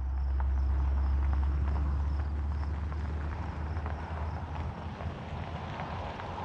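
Low rumble of a pickup truck driving slowly past, growing fainter after the first couple of seconds, with scattered faint ticks and a thin, steady, high-pitched insect buzz.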